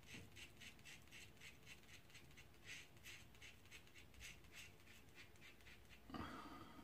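Safety razor scraping through lathered stubble on the cheek in short, faint strokes, about three a second. A brief louder rustle comes near the end.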